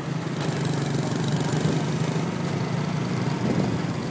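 Small step-through motorbike engines running steadily at cruising speed, with wind rushing over the microphone.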